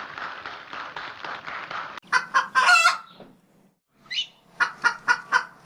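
Chicken-like clucking and a crowing call, after about two seconds of even hissing noise; near the end comes a run of short clucks, about four a second.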